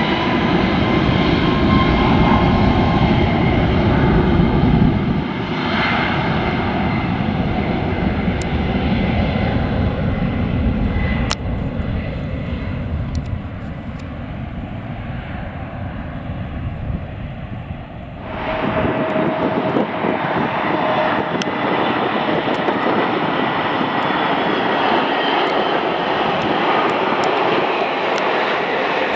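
Boeing 737 MAX 8's CFM LEAP-1B jet engines at takeoff power as it rolls down the runway: a loud low rumble that eases off after about five seconds and fades. About eighteen seconds in it cuts abruptly to an Airbus A320neo on final approach with its gear down, its engines a steadier hiss with a faint whine.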